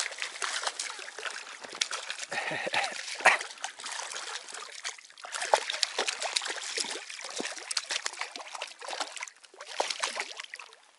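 A small hooked pike thrashing and splashing at the water's surface beside the kayak, in a dense irregular run of splashes with a few sharper slaps.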